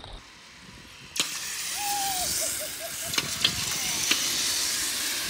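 A steady high, airy hiss starts abruptly about a second in, with a few faint clicks and, briefly, a faint distant voice.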